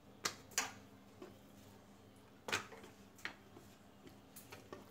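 Hands working an oiled sheet of dough thin on a wooden table-top: a few sharp, short ticks and taps at irregular intervals as fingers press, pull and lift the sticky dough on the surface.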